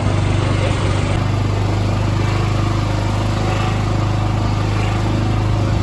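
Open-sided shuttle buggy driving along a paved path: a steady low motor hum with tyre and wind noise.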